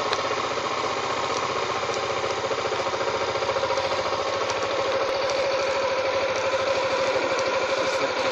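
An engine running steadily at an even speed, with a fast regular pulse and a steady hum.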